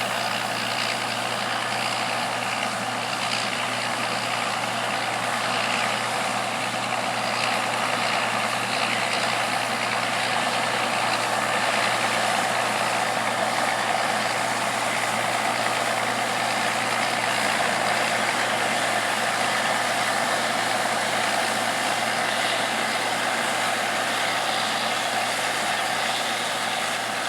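Heavy harvest machinery running steadily, a constant engine hum with a lot of mechanical noise and no change in pace.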